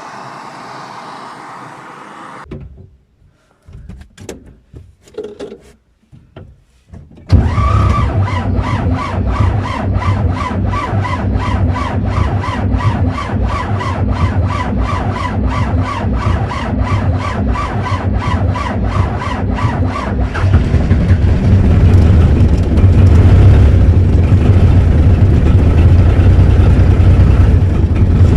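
T-40 tractor's air-cooled diesel being cranked in the cold by its electric starter: the starter whines with an even, laboured beat of about four compressions a second. About twenty seconds in the diesel catches and settles into a deep, steady run. A steady rushing noise and a few knocks come before the cranking starts.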